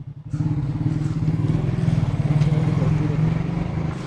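Hyundai 1400 W electric pressure washer motor kicking in about a third of a second in and running steadily, with a rushing hiss of water, as the spray lance is twisted off the gun.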